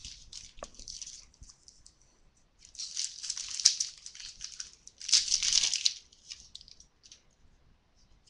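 Crinkling and rustling as trading cards and their packaging are handled, with two louder bursts of crinkling, one about two and a half seconds in and one about five seconds in, each lasting about a second.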